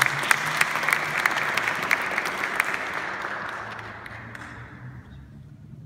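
Audience applauding with many pairs of hands, loud at first, then fading and dying out over the last couple of seconds.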